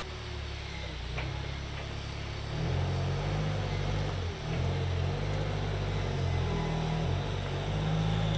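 Forklift engine working under load as it pushes a heavy recovery truck, its low note rising and falling with the throttle and getting louder about two and a half seconds in.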